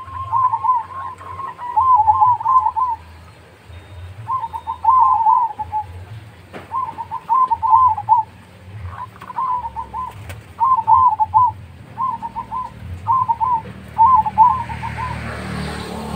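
Zebra dove (Javanese perkutut) cooing: a run of short, rolling coo phrases repeated every second or so with brief pauses between them.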